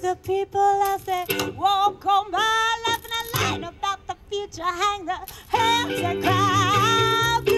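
A small acoustic band playing live: a woman singing with a wide vibrato over upright bass and mandolin, holding a long wavering note near the end.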